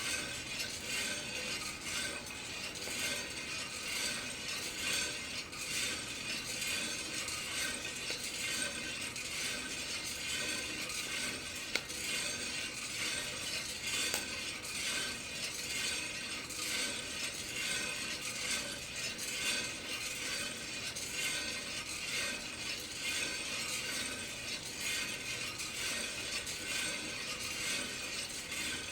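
Kaldi drum coffee roaster turning, with green coffee beans tumbling and rattling inside the rotating drum in a steady, continuous rattle; a single sharp click about twelve seconds in.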